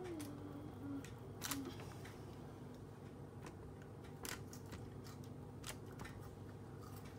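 Faint, scattered clicks and taps of a wooden spoon handle pressing holes into cookie dough balls on a parchment-lined baking tray, over a steady low background hum.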